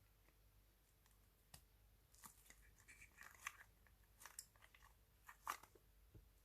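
Slime being pressed and worked by hand, giving a run of faint, irregular crunchy crackles and clicks, with the loudest snaps about halfway through and near the end.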